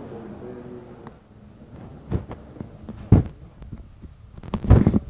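A few dull, low thumps, loudest about three seconds in and in a cluster near the end, over faint murmured voices of a group of men.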